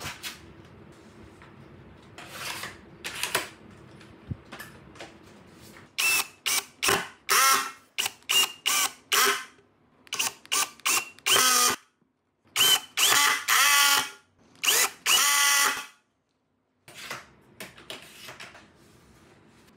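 Cordless screwdriver driving wood screws through a steel hinge into a pine leg, in a string of short whirring bursts about six seconds in, after a few knocks of clamps and boards being handled.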